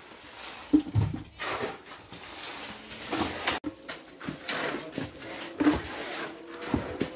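Irregular knocks and short scraping rushes of hand work on a building site, with a sharp knock about a second in and more knocks near the end.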